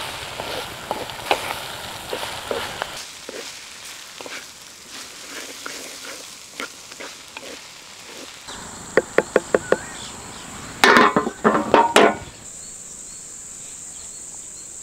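A pan frying with sizzle and the clatter of a spoon stirring for the first few seconds. From about the middle, crickets chirr steadily and high. A quick run of sharp clicks and a few loud clattering knocks come about two-thirds in.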